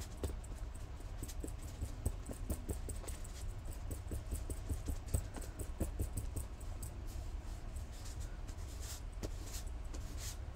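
Distress ink being dabbed and rubbed onto the ruffled edges of a paper filter layered on card. It makes rapid, irregular light taps and scuffs of the ink applicator against the paper.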